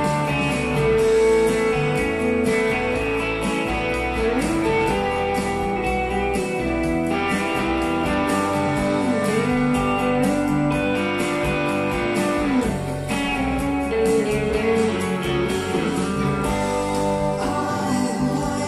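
Recorded guitar music played back through a pair of Wharfedale Evo 4.2 bookshelf speakers driven by a Denon PMA-2500NE amplifier, heard in the room. It has sustained notes and several sliding, gliding guitar pitches.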